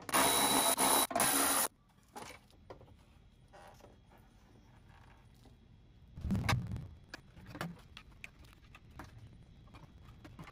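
Milwaukee cordless ratchet running in two short spurts at the start, spinning out a 10 mm bolt. Then come faint handling clicks, and about six seconds in a low clunk and plastic rattle as the loosened plastic bracket is pulled off the bumper beam.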